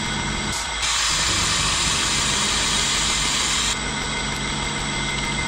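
Bridgeport milling machine running with a steady hum. About a second in, a loud hiss starts abruptly and lasts about three seconds before cutting off.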